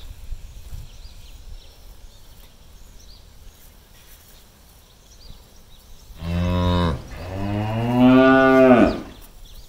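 A cow mooing twice about six seconds in: a short call, then a longer, louder one that rises and falls in pitch.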